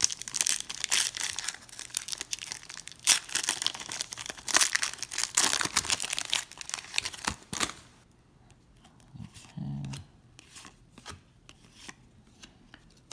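A foil trading-card pack wrapper being torn open and crinkled in the hands: a dense crackling for about eight seconds, then only a few faint rustles and ticks.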